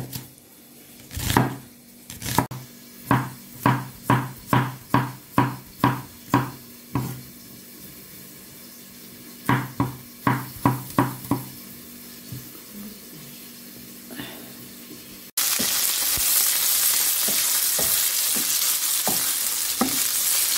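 Chef's knife chopping onion and garlic on a wooden cutting board: sharp, regular knocks about two a second, with pauses. Then a sudden cut to green beans sizzling in olive oil in a frying pan, stirred with a wooden spoon that knocks lightly now and then.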